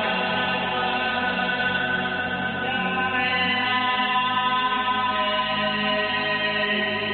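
Layered live loops of a man's singing voice, sounding like a small choir and holding sustained chords. The low notes change about three and a half seconds in.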